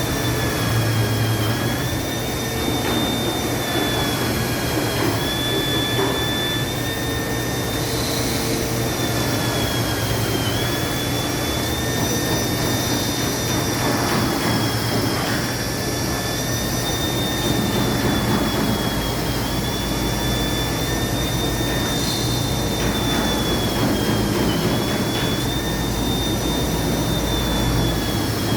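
Machinery of a robotic nailing and drilling cell running: a steady high whine that sags briefly in pitch every few seconds, over a constant low hum, with a few faint knocks.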